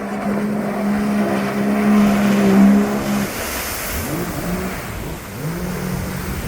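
Jet ski engine running at a steady high pitch. About three seconds in the pitch drops, then rises and falls several times as the throttle is worked, over a rushing hiss.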